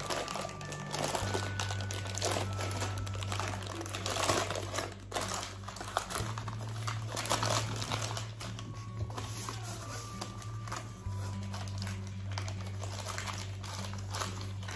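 Baking parchment paper crinkling as it is crumpled and pressed by hand into a round metal cake tin. Background music runs underneath, with low held notes that change every few seconds.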